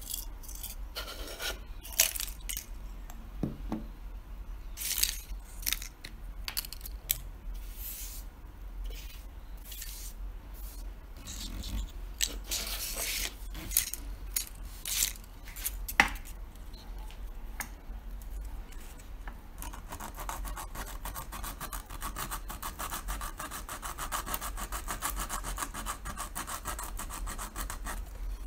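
A 3D-printed plastic mask being hand-sanded and scraped to clean up the print. First come scattered scratchy strokes, then from about twenty seconds in a fast, even run of rapid scraping strokes.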